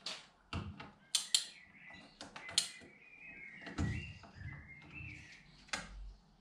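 About seven sharp, irregularly spaced clicks and knocks of hand tools as bolts on a BMW N52 cylinder head are torqued down with a wrench and torque angle gauge. Birds chirp in the background.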